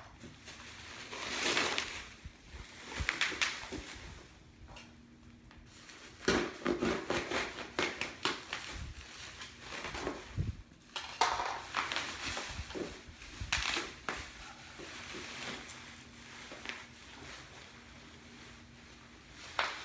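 Wet package wrapping being cut with a knife and torn open by hand: irregular crinkling and rustling with louder sharp tears.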